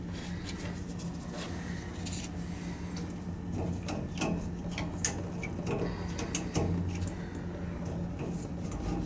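Small metal clicks and scrapes of tools and a brass oil-tank valve fitting being worked by hand over a jug, with a steady low hum underneath. The sharpest clicks come about five seconds in and again shortly after.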